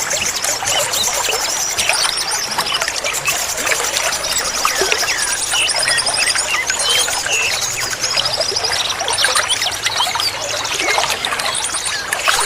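Many small songbirds chirping and calling over the steady sound of trickling water, with repeated high, rapid trills. The mix is a recording played to coax caged songbirds into singing.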